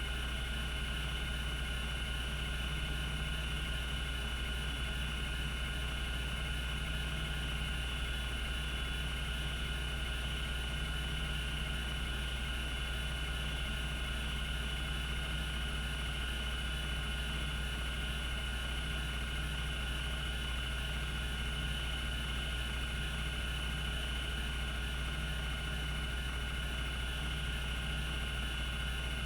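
Cogito Systems CG-912 5.25-inch hard disk spinning steadily at 3600 RPM: a constant low hum with a steady high whine, and no seek clicks.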